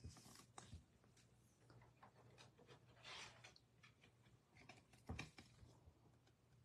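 Near silence: faint handling of a trading card, with light clicks and rustles, a soft swish about three seconds in and a soft knock just after five seconds, over a faint steady hum.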